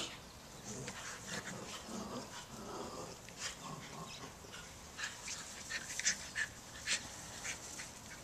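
Small dogs play-fighting, with low growly whines in the first few seconds, then a run of short sharp rustles and clicks as they scramble across the grass.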